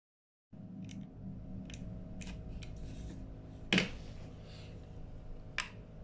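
Small plastic clicks of remote-control key-fob buttons being pressed and the fobs handled, several light clicks with one sharper knock about halfway through, over a steady low hum.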